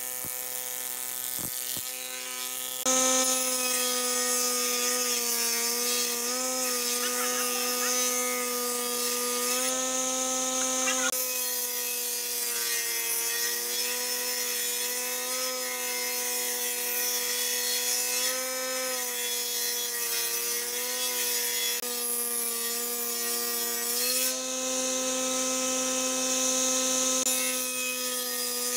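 Combination jointer and thickness planer running under load: a steady motor whine whose pitch sags each time the cutterhead bites into the board, with the hiss of the knives planing wood. It gets louder about three seconds in.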